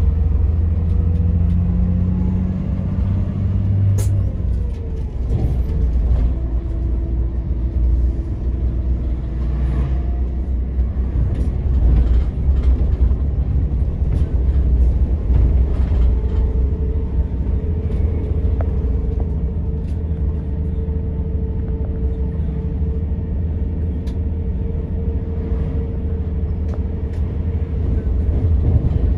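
Scania K124 IB bus's diesel engine running on the road: a steady, heavy low rumble with a constant higher hum over it.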